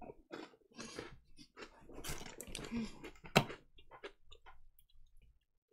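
A thin plastic water bottle being handled and its screw cap twisted off: a string of plastic crackles and clicks, the sharpest about three and a half seconds in.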